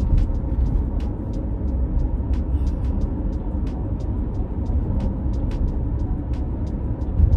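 Road and engine noise heard inside a moving car's cabin: a steady low rumble, with faint scattered ticks.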